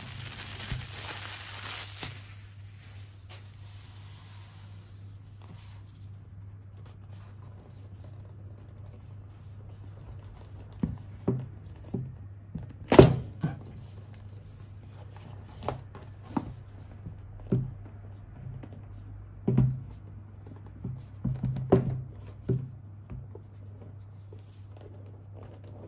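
Clear plastic shrink wrap crinkling as it is scrunched up, fading out over the first few seconds. Then a cardboard box is handled on a wooden table: a scattered series of short knocks and taps, the loudest about 13 s in, over a steady low hum.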